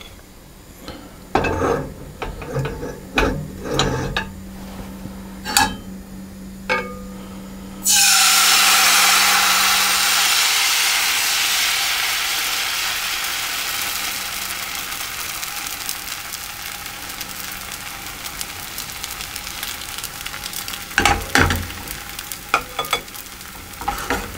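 A few utensil clinks. Then about eight seconds in, crepe batter poured into the hot greased frying pan sets off a sudden loud sizzle that slowly dies away as the pancake cooks. A few utensil knocks come near the end.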